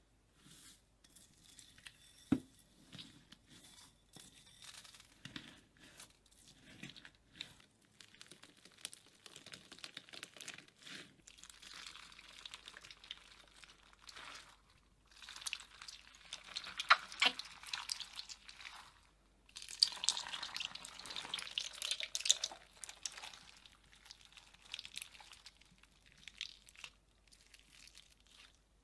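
Slime being squished, stretched and poked, making a stream of small crackling, sticky popping and clicking sounds that grow denser and louder in two stretches past the middle.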